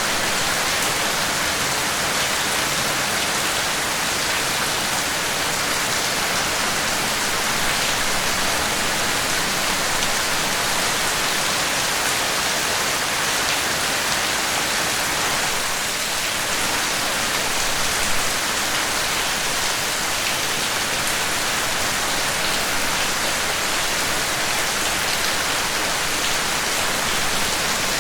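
Steady rain falling, an even hiss with scattered drops tapping, holding level without let-up.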